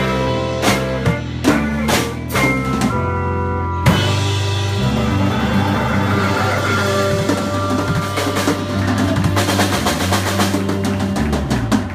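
Live band music: drum kit hits over bass and guitar, then about four seconds in a crash into a held chord under a cymbal wash, with fast drum rolls.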